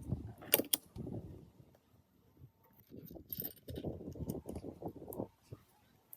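Metal parts of a Willys MB gearbox being handled. There are a couple of sharp clicks early on, then irregular clinking and rattling in two stretches with a short quiet gap between them.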